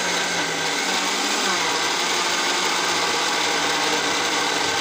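Countertop jug blender running steadily, blending a thick smoothie of plums, apples, bananas, kefir and cucumber; its motor pitch dips slightly about one and a half seconds in.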